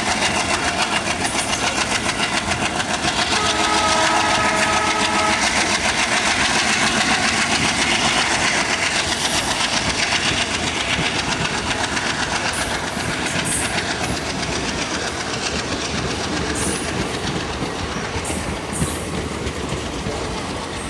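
Indian Railways passenger coaches running past on the rails, the wheels clattering over the rail joints in a fast, steady rhythm. About four seconds in, a steady horn-like tone is held for about two seconds, and short faint squeals sound now and then later on.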